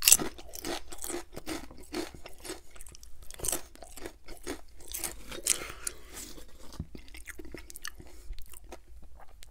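Potato chips being bitten and chewed close to the microphone: a loud crunch as the first bite is taken, then a run of irregular crisp crunches as the chips are chewed.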